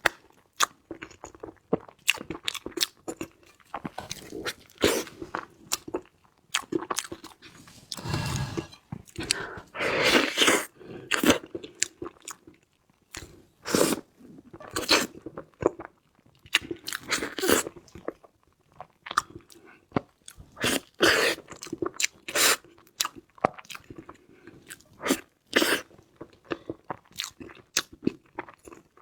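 Close-miked chewing and biting, with irregular crunchy bites and mouth sounds several times a second, broken by short pauses.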